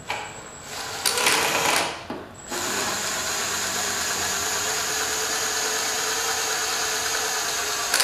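Cordless power driver spinning a socket to back out the variator mounting bolt: a short burst about a second in, then a steady run with an even whine from about two and a half seconds on as the bolt turns free.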